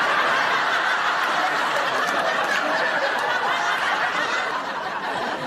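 Studio audience laughing after a sitcom punchline: one long, dense laugh that slowly dies away over the last couple of seconds.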